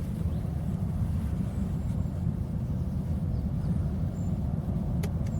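A steady low rumble, with a few faint short high chirps and a single sharp click about five seconds in.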